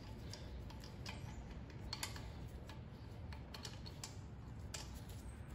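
Faint, irregular small clicks and ticks of a mounting bolt being hand-threaded into the aluminum housing of a triplex pressure-washer pump, turned by gloved fingers.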